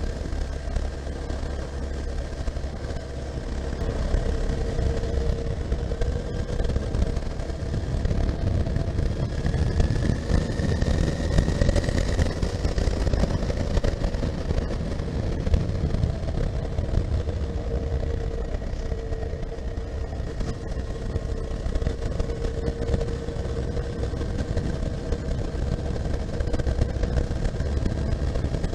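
Honda CB1300SF's inline-four engine running under way at cruising speed, its pitch rising and falling gently with the throttle, over steady low wind rush on the helmet microphone.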